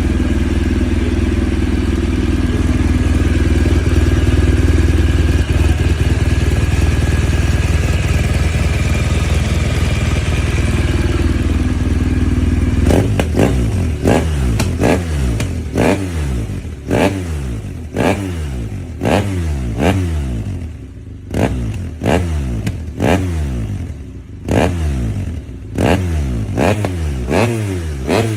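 BMW R1200GS boxer-twin engine through an SC-Project slip-on exhaust, held at steady raised revs for about thirteen seconds, then blipped over and over, roughly once a second, each quick rev falling away before the next.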